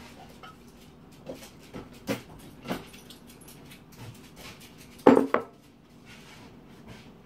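Kitchen clatter: a few light knocks and clinks of dishes and utensils, then a louder double knock about five seconds in as a ceramic bowl is set down on the counter.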